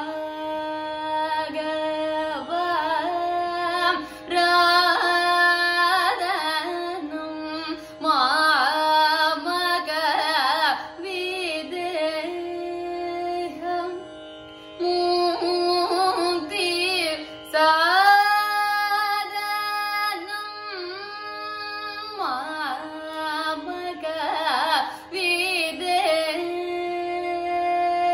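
Female Carnatic vocalist singing long, ornamented phrases with wavering gamakas and held notes, broken by short breaths, over a steady drone.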